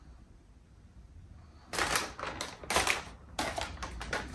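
Plastic food packaging, a bag of shredded mozzarella and a pepperoni pack, crinkling and rustling in several short crackly bursts from about two seconds in.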